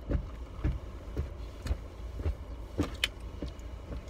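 Car cabin noise: a steady low rumble with soft knocks and thumps about twice a second, and one sharp click about three seconds in.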